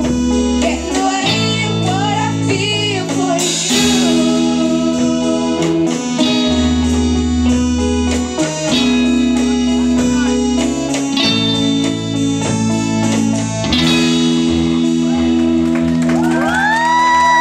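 Live band performance of a pop song: a girl singing into a microphone over electric guitars, electric bass and drums, with chords held near the end.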